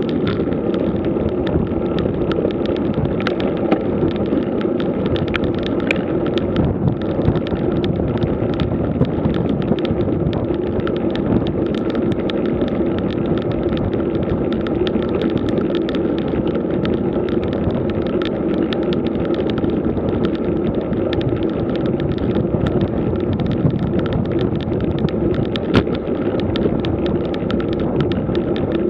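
Road bike riding over rough, cracked asphalt: a steady rumble and hum from the tyres and bike with wind on the microphone, broken by frequent small rattles and clicks from bumps in the surface.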